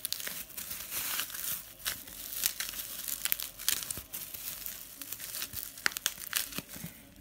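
Plastic bubble wrap crinkling and crackling irregularly as a lightsaber sleeve is pulled out of it by hand.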